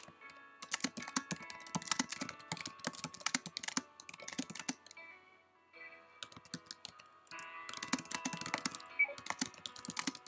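Typing on a computer keyboard: quick runs of key clicks, with a pause of about two seconds midway.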